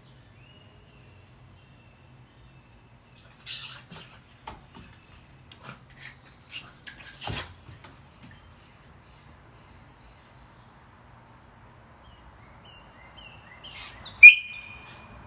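Bichon Frise left alone at a closed door: a run of scratches and clicks through the middle, then a short, loud, high-pitched whine near the end, a dog's distress at being shut out.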